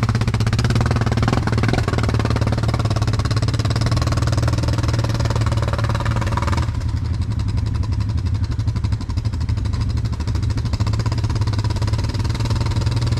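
ATV engine running steadily under throttle while riding through mud. About halfway through the sound turns duller and a little quieter.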